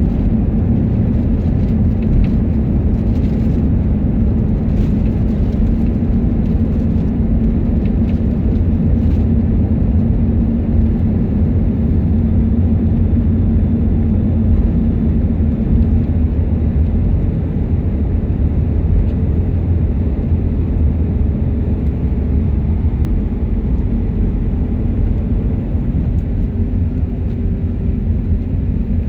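Steady low rumble inside an Airbus A321neo LR airliner's cabin during landing: engine and airflow noise from the plane's approach or runway roll. It eases slightly near the end, where a faint tone slides down.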